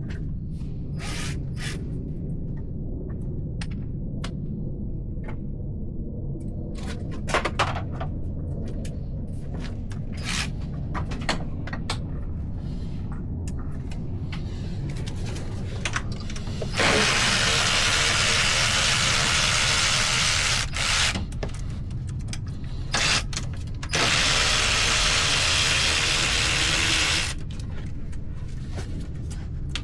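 A power tool, likely a cordless ratchet or drill driving out bolts, runs in two bursts of a few seconds each, starting about halfway through. Before the bursts come scattered light clicks and clinks of hand tools on the fasteners.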